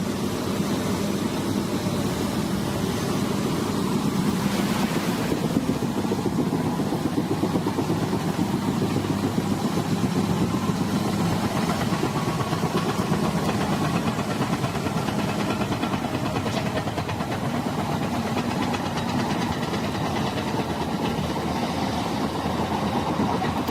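Heavy machine's engine running steadily, a continuous low drone without breaks.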